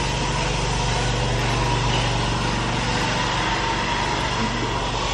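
Motorboat engine running steadily on the canal: a constant engine hum with a steady higher whine.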